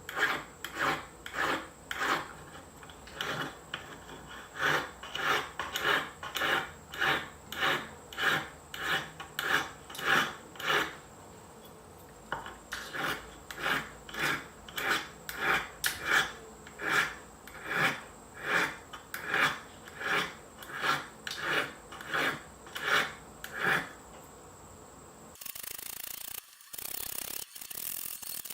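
Hand abrasive strokes on a silver spoon, rasping back and forth about twice a second, with a short pause partway through. Near the end the strokes stop and a steadier, hissier noise with brief breaks takes over.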